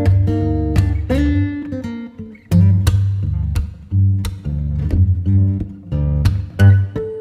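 Acoustic guitar music: plucked notes and strums over a deep low line, in a steady, even rhythm.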